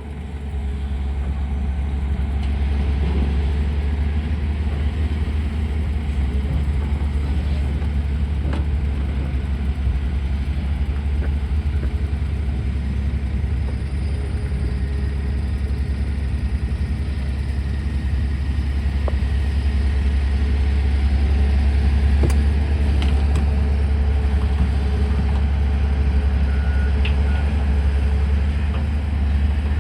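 Tata Hitachi hydraulic excavator's diesel engine running steadily with a deep, low drone, with a few faint clicks or knocks.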